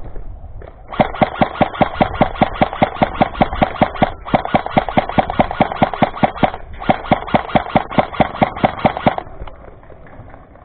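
Krytac Alpha CRB airsoft electric rifle firing rapid strings of shots, about four a second, in three runs with two short breaks, stopping about nine seconds in.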